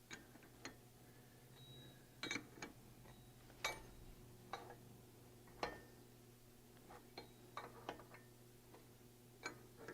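Faint, irregular metal clicks and clinks, roughly one a second with the loudest a little under four seconds in, from hand work on a steel pipe alignment clamp's bolts and turnbuckles.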